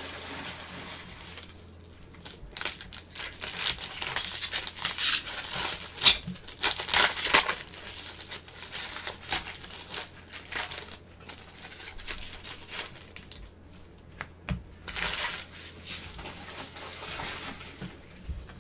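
Foil trading-card pack wrappers being torn open and crinkled by gloved hands, in two long spells of rustling with handling noise between.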